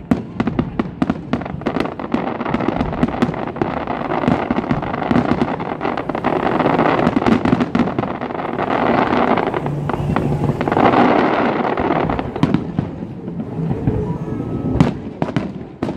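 Aerial fireworks shells bursting in rapid succession: many sharp bangs and pops. About halfway through they thicken into a steadier continuous din.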